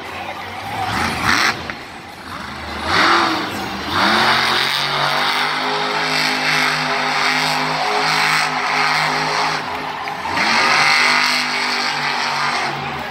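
A monster truck's supercharged V8 engine revs hard again and again, its pitch sweeping up on each throttle stab and holding high in between while the truck lands and drives on.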